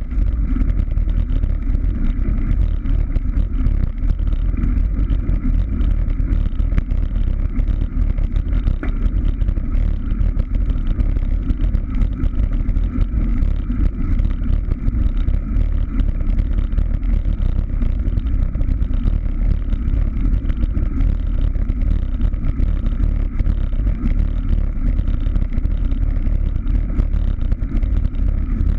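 Wind buffeting the microphone of a camera on a moving bicycle: a steady low rumble with no breaks.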